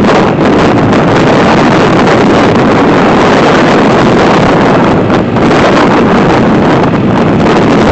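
Loud, steady wind rush buffeting the microphone while riding a scooter, with the scooter's running noise mixed in.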